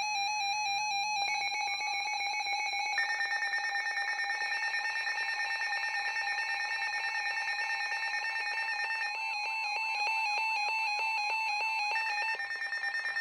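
Weather radio alert tone: a steady, synthetic alarm tone with a wavering texture that shifts character several times, sounding between severe weather warning messages.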